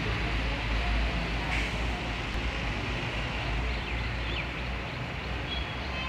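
Diesel bus engine running steadily, a low rumble, with a few short high chirps above it.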